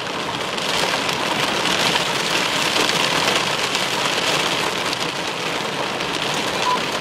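Heavy, wind-driven thunderstorm rain pelting against window glass: a dense, steady hiss that rises slightly about a second in and stays strong.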